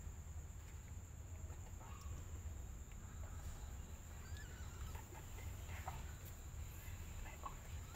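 A few faint, short animal calls and small rising squeaks, scattered over a steady low hum.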